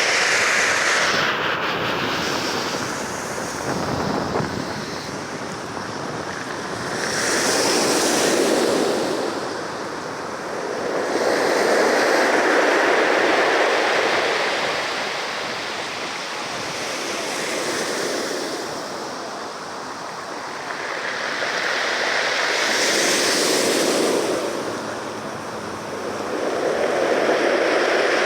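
Ocean waves breaking and washing up the shore, surging and easing back every four to five seconds.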